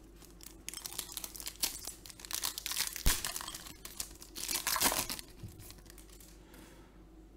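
Wrapper of a Panini Optic basketball card pack crinkling and tearing as it is ripped open by hand, with a sharp snap about three seconds in. The crinkling stops about five seconds in.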